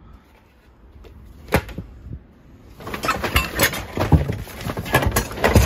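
Old toys being rummaged through in a cardboard box: hard plastic pieces and cardboard game boxes knocking and rustling against each other. There is one sharp knock about a second and a half in, then a busy jumble of clatter through the second half.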